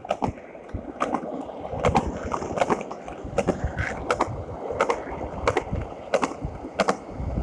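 Skateboard wheels rolling down a wet concrete path: a steady rumble with a hiss of water, broken by sharp clacks about twice a second as the wheels cross the seams between the slabs.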